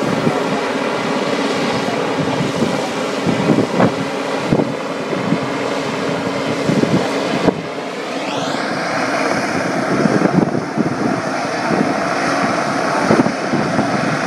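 Westland Sea King helicopter hovering: the steady rotor and twin-turboshaft engine noise, with wind buffeting the microphone.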